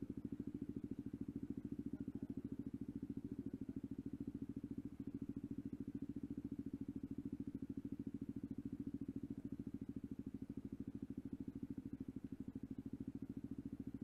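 Dirt bike's single-cylinder engine idling steadily, with an even fast pulse and no revving.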